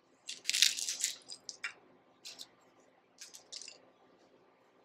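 Crisp homemade tortilla pieces crushed by hand into the bottom of a soup bowl: a cluster of crackling crunches in the first second and a half, then a few shorter, fainter ones.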